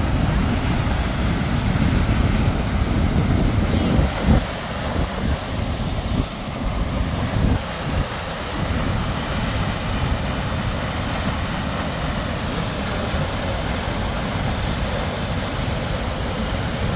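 Steady rushing of a waterfall that plunges straight into the sea, with wind buffeting the microphone in gusts during the first half.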